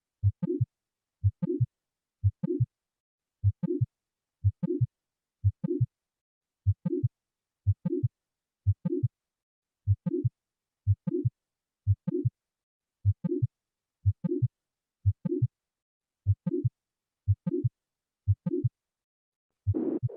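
Recorded heart sounds heard through a stethoscope: a regular beat of about one a second, each beat a low thud followed closely by a higher-pitched second sound.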